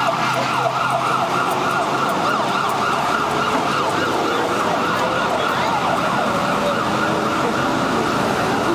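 An emergency vehicle's electronic siren in a fast yelp, its pitch sweeping up and down several times a second without a break.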